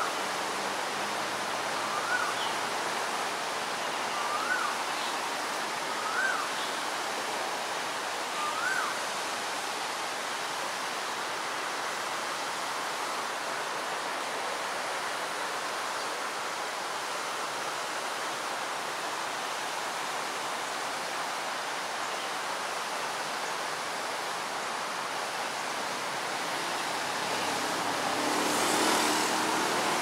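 Steady rushing outdoor background noise. In the first nine seconds a short whistled call that rises and falls sounds five times, about every two seconds. Near the end a louder, lower rumble swells up.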